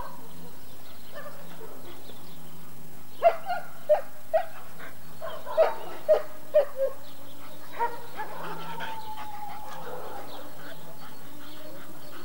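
German Shepherd dog barking in two short runs, three barks and then four, with a single bark after them, followed by a drawn-out whine.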